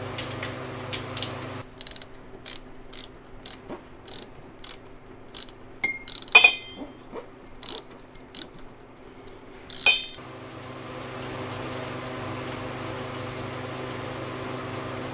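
Ratchet wrench clicking in short strokes, about two clicks a second, as a water pump bolt is backed out of a Chevy 350 small-block, with a louder metallic clatter about six seconds in and again about ten seconds in.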